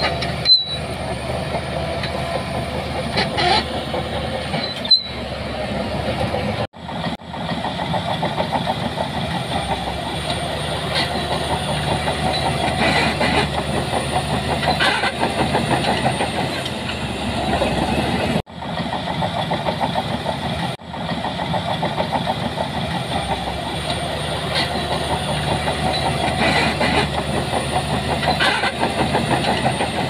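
Shantui crawler bulldozer's diesel engine running steadily under load as the dozer pushes sand. The sound cuts out abruptly for a moment a few times.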